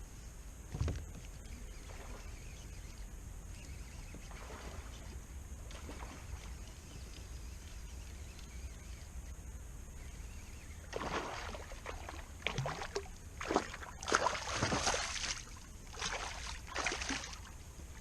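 Water splashing and sloshing around a kayak, with a single knock about a second in. Then comes a run of irregular splashes through the last several seconds.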